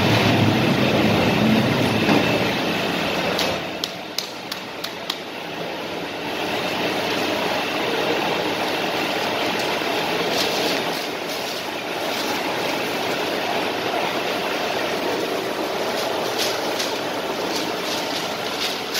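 SMI 32×43 die punching machine running in a workshop: a steady mechanical drone with sharp clicks. It is louder for the first few seconds, dips about four seconds in with a quick run of clicks, then runs steadily again with more clicks now and then.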